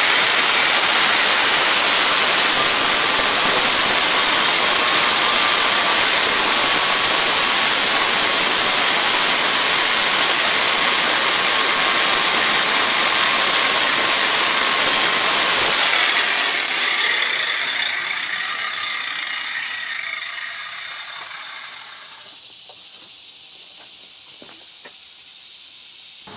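Angle grinder running loud and steady as it cuts through a seized steel part. About two-thirds of the way through it is switched off, and the disc winds down with a falling whine as the noise slowly fades.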